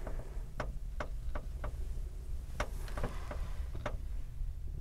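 About ten light clicks and taps at irregular intervals over a low, steady hum.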